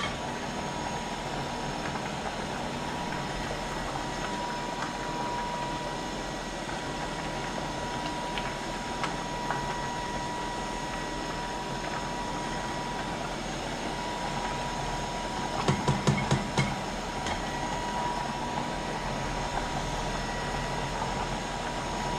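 Steady rushing noise of a pot of spaghetti boiling hard on a gas stove, with a faint steady high tone. A little past halfway, a quick cluster of knocks and scrapes as a slotted spoon stirs the pasta against the steel pot.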